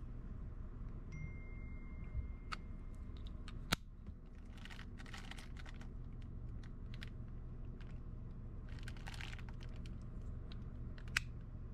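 A pod vape and its plastic pod being handled: a few sharp clicks and taps, the loudest a little under four seconds in and another near the end, with two short bouts of rustling, over a steady low background rumble.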